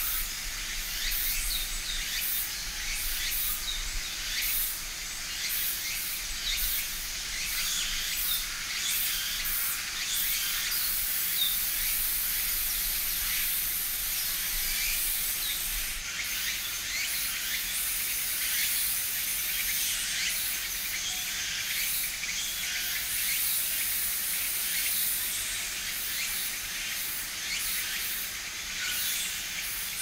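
Steady high-pitched hiss of an insect chorus, pulsing quickly, with a few faint short bird notes.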